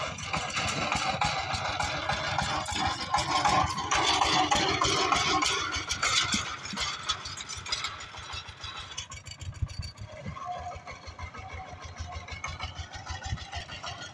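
Power tiller's single-cylinder diesel engine chugging steadily with distinct firing pulses as it pulls a trolley. Louder for a few seconds in the first half, then quieter.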